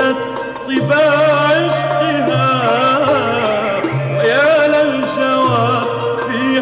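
Middle Eastern devotional music: a wavering, heavily ornamented melody over held low notes that shift every second or two.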